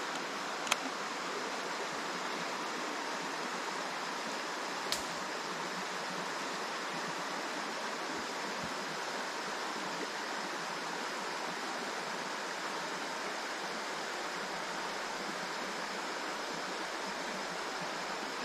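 Creek water rushing steadily, with two brief sharp clicks, one about a second in and one around five seconds in.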